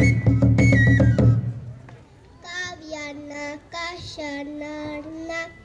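Pre-Hispanic drum beating about three times a second under a high, held flute tone, fading out about a second and a half in. After a short pause a child's voice begins singing a chant alone in a non-Spanish language.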